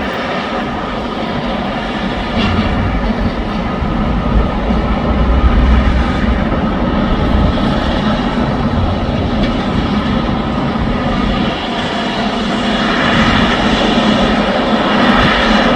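Diesel engines of heavy demolition machinery running steadily, a constant engine hum with several held tones. It grows louder a couple of seconds in and again near the end.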